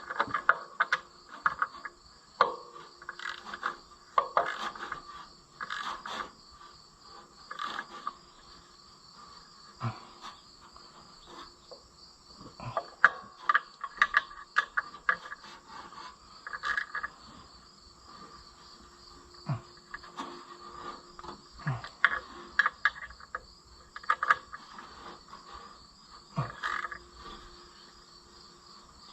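Hand-tool work on a tractor engine: scattered metallic clicks and knocks from a socket wrench and extension as bolts are tightened, some sharp and loud, with gaps between. A steady high-pitched pulsing trill runs underneath.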